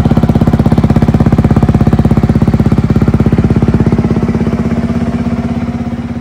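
2025 Honda CRF250RX's single-cylinder four-stroke engine idling steadily through a Pro Circuit Ti-6 exhaust, an even stream of exhaust pulses, fading away near the end.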